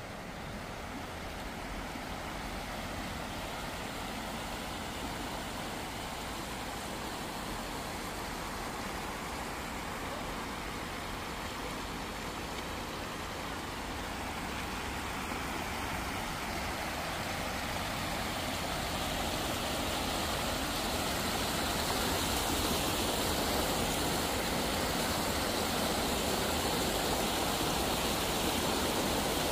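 Shallow stream water rushing through the gaps between stepping stones as a steady hiss that grows louder toward the end.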